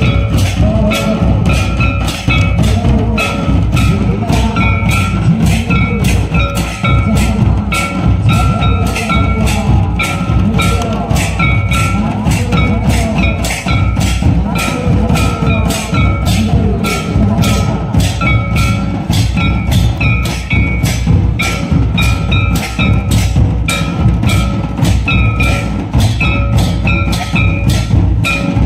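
Santali traditional dance music driven by drums beating a steady rhythm of about two strokes a second, with a repeating bell-like ringing tone over it.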